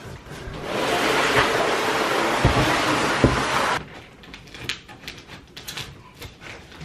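Large cardboard furniture box being pushed across the floor: a steady scraping that stops abruptly about four seconds in. Quieter clicks and rustles follow as the box is opened.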